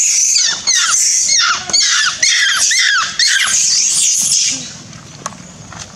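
Macaque screaming: a rapid series of loud, high-pitched shrieks that fall in pitch, several a second, stopping about four and a half seconds in.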